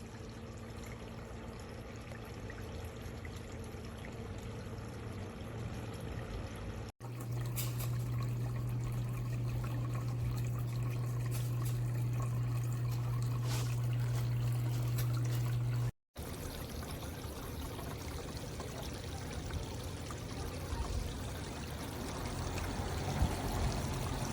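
Water trickling and pouring down a Glenville cascading water fountain, broken twice by sudden brief dropouts. In the middle stretch between the dropouts, a steady low hum sits under the water.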